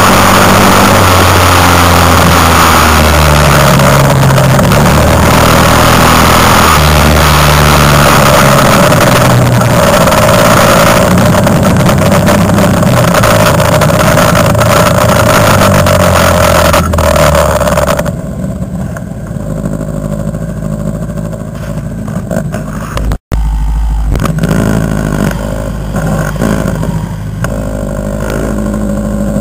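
Quad bike (ATV) engine heard from on board while riding, its note rising and falling with the throttle. About 18 s in it drops to a quieter steady running; after a brief break a little later it carries on at that lower level.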